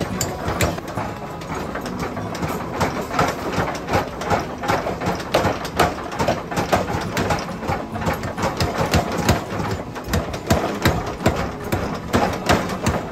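Mechanical power hammer pounding a red-hot hammer-head blank on its die: a fast, steady run of heavy metal-on-metal blows over the continuous hum of the machine running.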